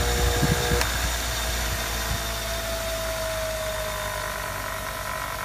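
Bench grinder motor spinning the Drake honing wheels. A click comes just under a second in, after which the steady hum drops and a faint whine slowly falls in pitch.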